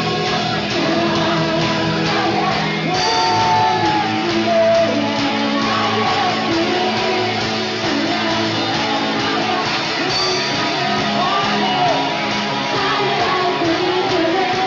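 Live band music with a group singing, recorded in a large hall; the band grows fuller about three seconds in.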